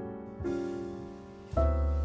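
Background piano music: soft held chords, a new chord about half a second in and a deep bass note coming in near the end.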